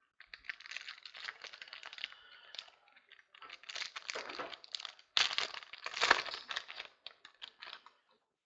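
Plastic wrapping on trading-card packaging being torn open and crinkled by hand, a run of crackling that is loudest about five and six seconds in.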